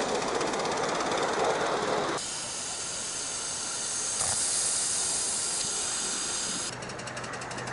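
Miniature live-steam locomotive running, with a steady hiss of escaping steam. The sound changes abruptly about two seconds in and again near the end, and the first two seconds carry a rapid fine pulsing over the hiss.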